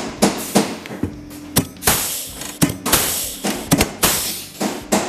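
Pneumatic rivet gun setting aluminium pop rivets through a snowmobile footboard: a rapid series of sharp snaps, several followed by a short rush of air. Background music plays underneath.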